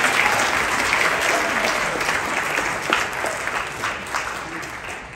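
Congregation applauding, the clapping dying away near the end.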